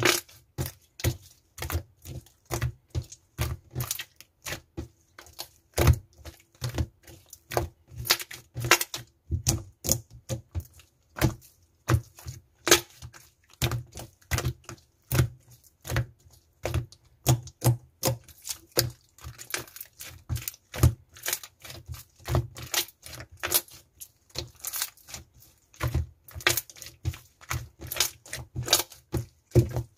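Clear slime being squeezed and worked by hand, giving an irregular run of sharp clicks and pops, several a second.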